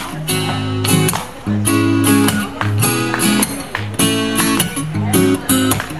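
Steel-string acoustic guitar strummed in rhythmic chords, with sharp strokes about two or three times a second: an instrumental break in a live solo song.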